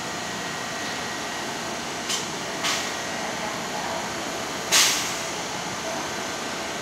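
A stopped R160A subway train with a steady hum and hiss from its running equipment. Three short hissing bursts sound over it, about two, two and a half and five seconds in; the last is the loudest and trails off.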